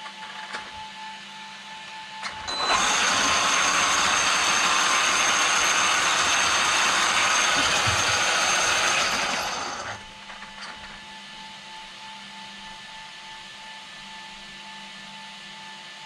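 Traxxas X-Maxx RC truck's electric motor and drivetrain running with the wheels spinning freely off the ground, a steady loud whir. It starts abruptly about two and a half seconds in and winds down near ten seconds.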